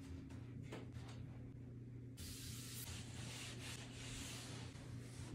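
A spray bottle of Windex glass cleaner spritzing once, about two seconds in, for about half a second, over a low steady hum.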